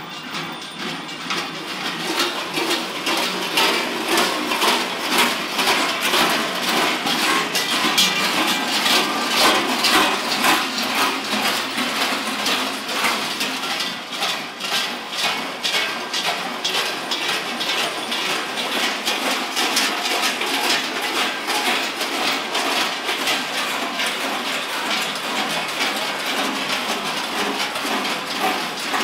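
Dense, continuous clanging of many large bells worn by a troop of fur-costumed Klaubauf (East Tyrolean Krampus figures) running past, growing louder about two seconds in.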